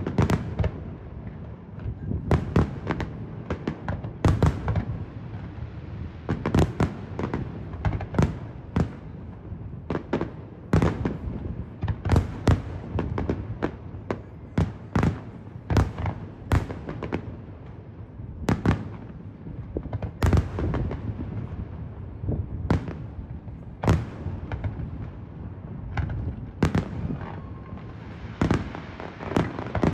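Fireworks display: aerial shells bursting in sharp bangs at an irregular pace, about one to two a second, over a low rumble. Near the end a crackling hiss joins in.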